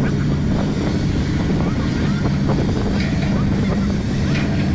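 Steady low engine drone of a boat at sea, with wind buffeting the microphone.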